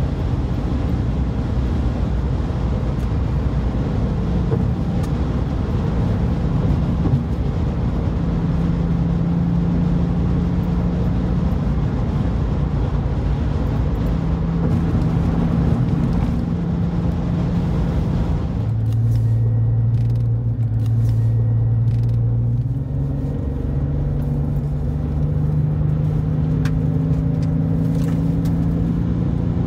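Porsche 911 (996) flat-six engine and road and wind noise heard from inside the car at cruising speed. A little past halfway the rushing noise fades and the engine note drops. A few seconds later the engine pitch rises again and keeps climbing slowly.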